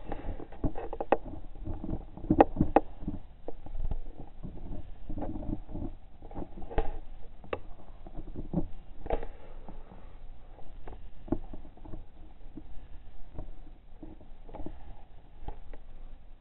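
Trail-camera audio slowed to quarter speed: irregular low knocks and thuds over a dull rumble, all deepened by the slowdown.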